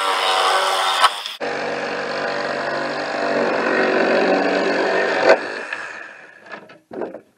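Electric power saw running and cutting, likely wood, to make the box's door openings. Its motor whine breaks off about a second and a half in, runs again for about four seconds and winds down, followed by a few light knocks.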